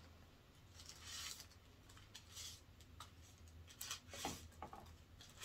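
Thin clear plastic wrapping being pulled off a large figure, rustling faintly in a few short bursts, with a light click or two.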